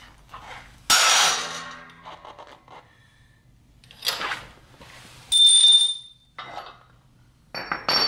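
A loud sharp crack about a second in, ringing briefly: the BMW Z3's aluminium differential cover fracturing under the load of a shop press as a new bushing is pressed into it. Then several shorter metal knocks and clinks, one ringing clearly, as the press plate and cracked cover are shifted.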